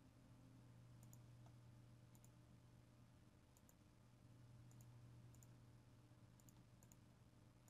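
Near silence: a faint steady hum with faint computer-mouse clicks, mostly in quick pairs, heard about seven times.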